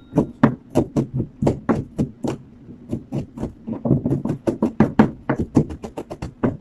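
Kitchen knife chopping garlic on a plastic cutting board: a quick, uneven run of knocks, several a second.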